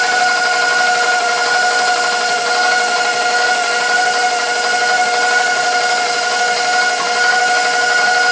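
KitchenAid Professional 5 Plus stand mixer running at a higher speed, its motor and gearing giving a steady whine at a fixed pitch as the dough hook kneads a sticky dough.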